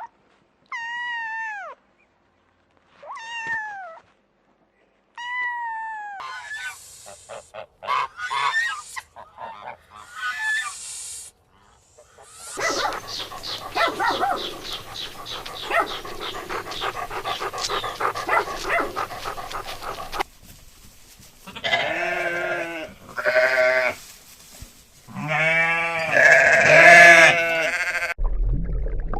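A run of different farm and domestic animal calls, one clip after another: a few short falling cries, then scattered short calls, a busy stretch of about eight seconds of many overlapping calls, and several strong pitched calls near the end.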